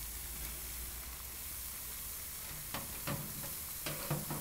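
Pot of water at a rolling boil over a small wood-burning backpacking stove, a steady hiss, with a few sharp clicks about three and four seconds in.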